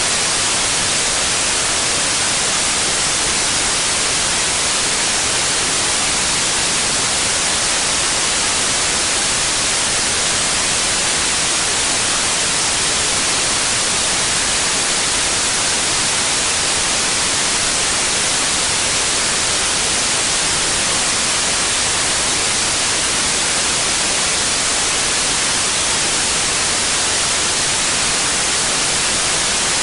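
Steady white noise: an even, unbroken hiss, strongest in the high range, with no change at all.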